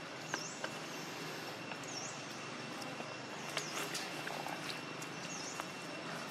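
Forest ambience: a short, high down-and-up chirp repeating about every two seconds over a steady high insect drone, with scattered light clicks and rustles.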